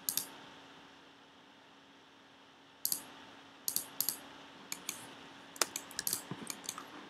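Sharp clicks of a computer mouse and keyboard, many in quick pairs, over a faint steady hum. The clicks stop for a moment near the start and pick up again about three seconds in.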